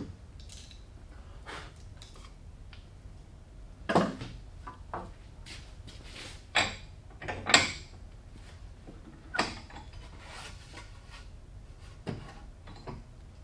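Wooden pieces being handled and worked by hand: a series of separate short knocks and scrapes, about eight, spaced unevenly, with the loudest a little after halfway through.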